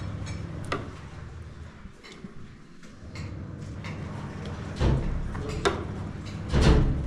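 Metal ladle scraping and tapping against a large cooking pot and a china plate while thick rice pudding is served: a few sharp clicks, with two heavier knocks in the second half, over a steady low hum.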